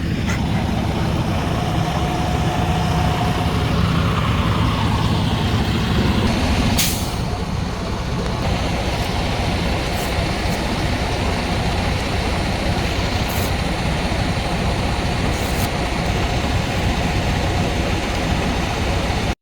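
Diesel truck engines idling with a steady low rumble. A sharp air-brake hiss comes about seven seconds in, with a few fainter short hisses later.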